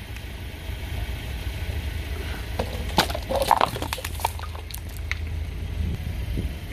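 A Volkswagen car's engine running low and steady as its tyre rolls over a row of plastic Play-Doh tubs. The tubs crack and snap in a quick cluster about three seconds in, with a few more snaps a little later.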